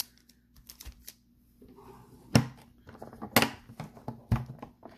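Hard plastic card holders clicking and knocking as cards are handled in a foam-lined case. There are a few sharp clicks, the loudest about two and a half seconds in, then roughly one a second, with fainter ticks between.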